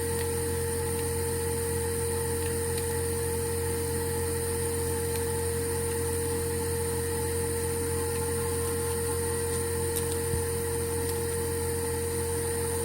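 Steady machine hum with a constant mid-pitched tone and a faint high whine, unchanging throughout, with a few faint ticks.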